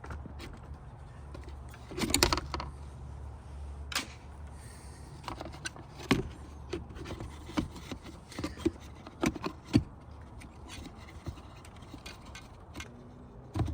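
Scattered plastic clicks, taps and knocks as the towing mirror's parts are handled and fitted back together, with a denser rattle about two seconds in. A low steady hum runs under the first four seconds or so, then stops.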